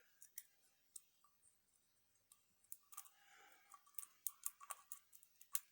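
Faint, scattered clicks and light taps of a pen and small metal lock picks being handled, more frequent in the second half.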